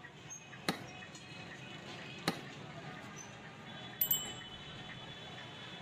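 Oil sizzling steadily in a large karahi as a katlama deep-fries. A few sharp clicks break in, and a brief bell-like chime rings about four seconds in.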